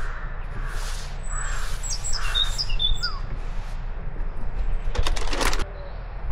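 A crow cawing about four times in quick succession, with small birds chirping high and thin at the same time. About five seconds in there is a brief clatter.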